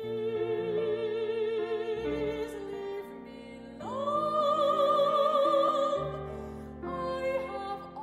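Mezzo-soprano singing in classical style with a wide vibrato. She holds one note for about two and a half seconds, then a louder, higher long note from about four seconds in to six seconds, over instrumental accompaniment.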